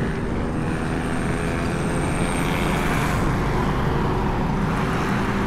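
A vehicle engine running steadily while on the move, with road noise underneath.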